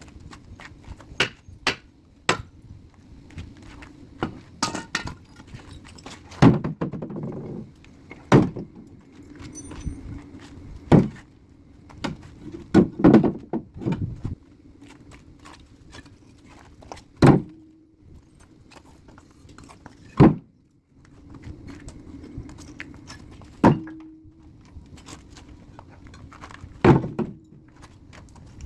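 Concrete blocks thunking down one after another at irregular intervals, some with a short rattle after the hit, over a low steady drone. The drone briefly drops out about two-thirds of the way in.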